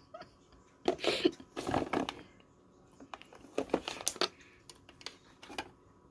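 A handful of irregular clicks, knocks and rustles from objects being handled, bunched about a second in, around four seconds in and once more near the end.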